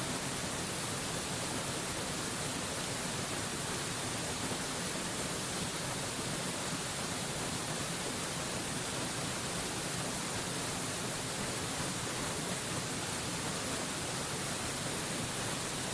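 Waterfall white noise: a steady, even rushing hiss of falling water, heavy in the treble, with no changes.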